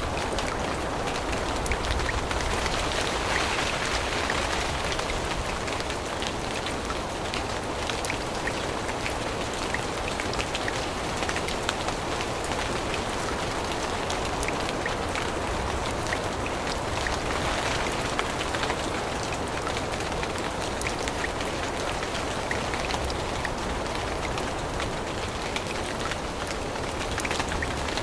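Steady rain falling on forest foliage, a continuous hiss scattered with the sharp taps of individual drops.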